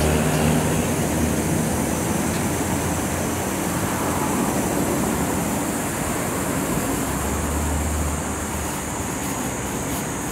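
Automatic gantry car wash running: a steady hiss of water spraying over a car, with the machine's low hum underneath that swells about seven seconds in.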